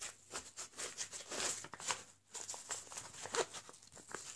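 Hand handling of a metal multi-tool and its canvas sheath: irregular rustling with light clicks and scrapes.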